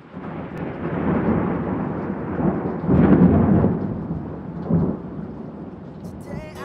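Rain falling steadily with thunder rumbling, swelling loudest about three seconds in and again briefly near five seconds. Guitar music starts just before the end.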